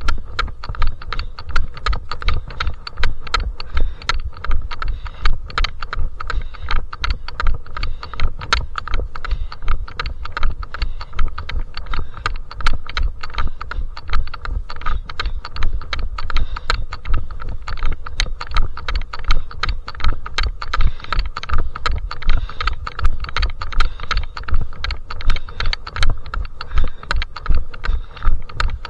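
A trail runner's footsteps on a mountain path: a steady, even rhythm of footfalls, each a low thud with sharp clicks on top.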